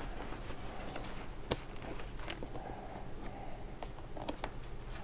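A few light clicks and handling noise from a backpack frame as its hold-open bar is worked onto the frame's pins, the clearest click about a second and a half in.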